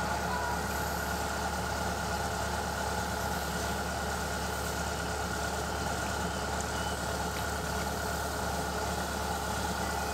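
Diesel engine of a Kubota DC-105X rice combine harvester running steadily and evenly, with no change in speed.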